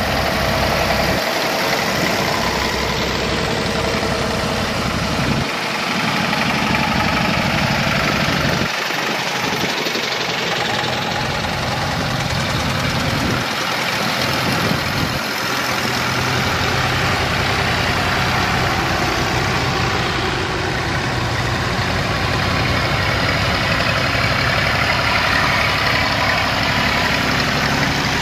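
Vintage farm tractors driving past one after another at low speed, their engines running. The low engine sound swells and fades as each tractor goes by.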